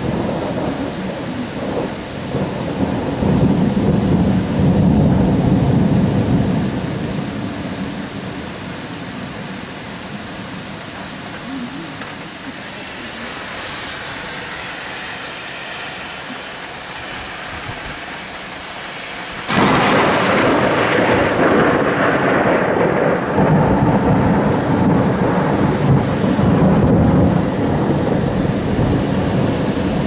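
Thunderstorm with steady rain splattering on wet pavement. Thunder rumbles early on and fades. About two-thirds of the way in, a sudden loud thunderclap breaks and settles into a long, rolling, low rumble.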